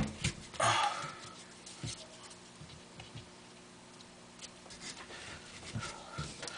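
Crumpled paper balls being handled and pressed onto nails in a board. A sharp click comes at the start, then a short crinkle of paper about half a second later, then scattered light ticks and rustles.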